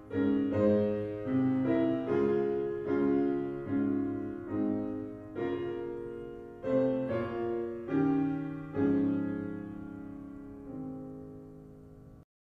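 Closing theme music on piano: a slow series of struck chords, each left to ring and fade, ending on a long held chord that dies away and then cuts off abruptly.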